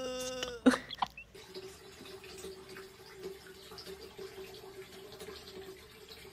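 Bathwater lapping and dripping quietly around a plastic box with a cat sitting in it, over a faint steady hum. This starts about a second and a half in, after a short drawn-out call at the very start.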